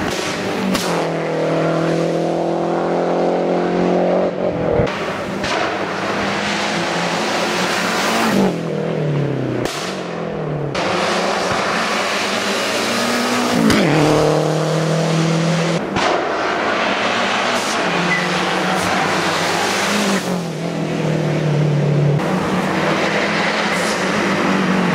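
Lancia Delta Integrale rally car's turbocharged four-cylinder engine under hard acceleration. The revs climb and then drop abruptly at each gear change, several times over.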